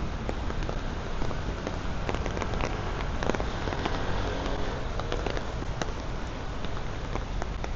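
Steady soaking rain falling, with many individual drops ticking sharply close by.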